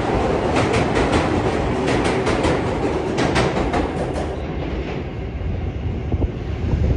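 R188 subway train pulling away from the platform into the tunnel, its wheels clicking rapidly over rail joints. The clicking stops a little over halfway through and a fading rumble remains, with a few low knocks near the end.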